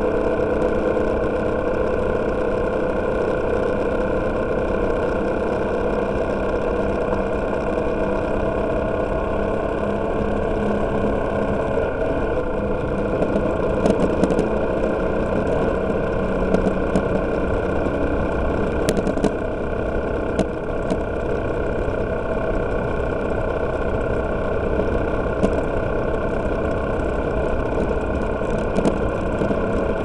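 Motorcycle engine running steadily at cruising speed, with road and wind noise, inside a road tunnel. A few brief sharp ticks are heard about halfway through.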